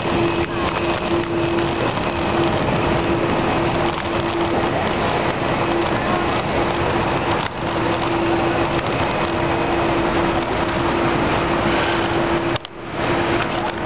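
Wind and road noise on the camera of a moving bicycle, with city car traffic around it and a steady mid-pitched hum running through. The noise drops away briefly near the end.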